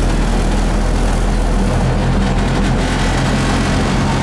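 Bus engine drone and road rumble heard from inside a moving bus, a steady low hum with a constant noise over it; the low engine note shifts slightly about two seconds in.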